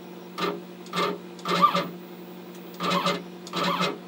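CNC router's Z-axis stepper motor jogging the bit downward in five short buzzes, each about a quarter second long, over a steady low hum.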